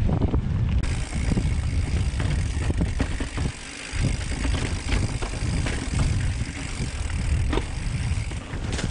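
Mountain bike riding over rough dirt and rock singletrack: a steady low rumble and hiss, with many small knocks and rattles as the bike goes over bumps. The hiss comes in about a second in.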